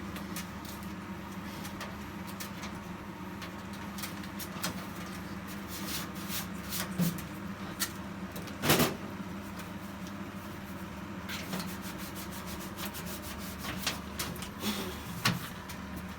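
Range hood being worked on: a steady low hum runs under repeated clicks, knocks and rubbing of parts being handled, with one louder knock about halfway through.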